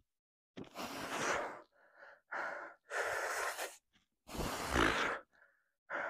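A man breathing hard through a set of bodyweight squats: three long, forceful breaths, with shorter, weaker ones between them.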